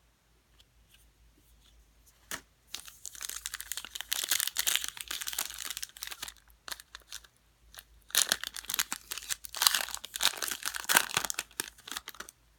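Plastic trading-card pack wrapper being torn open and crinkled, in two bouts of crackling with a pause between them.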